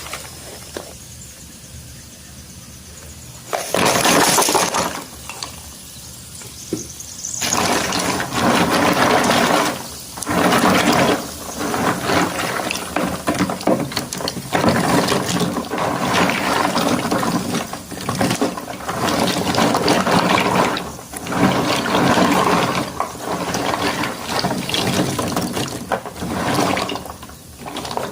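School chalk sticks poured from a box into water, a brief loud splash about three and a half seconds in. From about seven seconds in, hands swish and stir the sticks through the water in repeated splashing, sloshing bursts of a second or two each.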